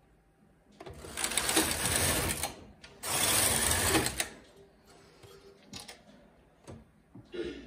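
Carriage of a Silver Reed SK840 double-bed knitting machine run across the needle bed twice, knitting two rows: a pass of about two seconds, then a shorter one just after. A few light clicks follow near the end.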